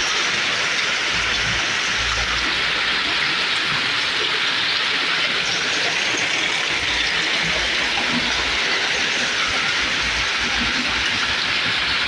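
Heavy rain pouring steadily, an even hiss with no break in it.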